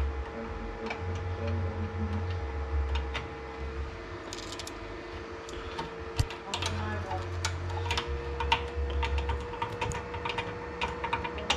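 A run of irregular, light, sharp clicks and taps that starts about four seconds in, over a steady low hum.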